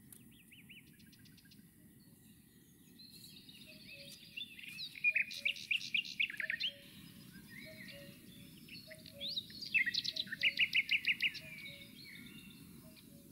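Songbirds singing: two bursts of rapid high chirps and trills, about four and about nine seconds in. Behind them, a faint low two-note call repeats over and over above a soft low background rumble.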